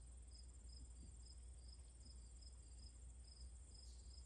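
Faint insect chorus, probably crickets: a steady high trill with a shorter chirp repeating about two or three times a second, over a low rumble.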